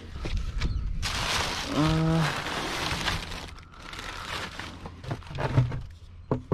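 Cardboard boxes and wooden furniture panels being shifted and loaded by hand: rustling and scraping of cardboard and wood, with a few knocks near the end.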